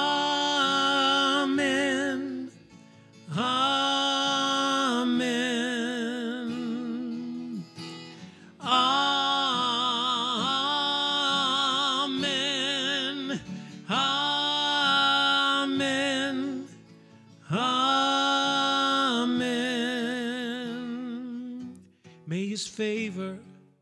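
Worship song sung over guitar accompaniment: a voice holds long notes with vibrato in about five phrases of two to three seconds each, with short breaks between them.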